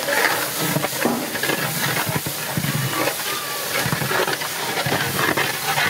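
Long-handled metal ladle stirring and scraping through thick mutton masala in a large metal pot, with a steady hiss underneath and repeated short scrapes and knocks.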